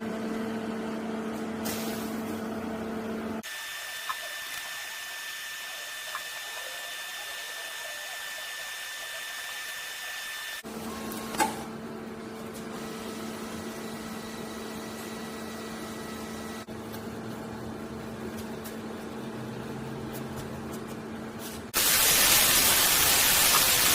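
Welding: a steady electrical hum alternating with stretches of hiss, and a much louder, even hiss starting about 22 seconds in.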